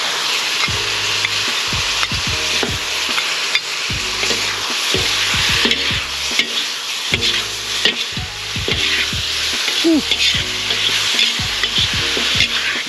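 Beef, broccoli and freshly added liquid sizzling and steaming hard in a hot wok, with a steady hiss. Metal ladle and spatula scrape and clack against the wok again and again as the food is stirred.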